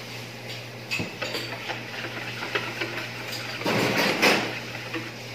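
A metal wire whisk beating liquid batter in a bowl, with a few scattered clicks and then a quick run of scraping, clattering strokes against the bowl about four seconds in. A steady low hum sits underneath.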